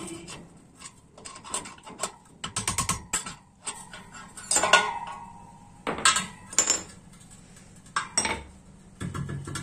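Steel rod driven down through a motorcycle wheel hub, knocking against the wheel bearing in rapid runs of sharp metal knocks, then a few louder single clanks that ring briefly, as the badly worn bearing is driven out of the hub.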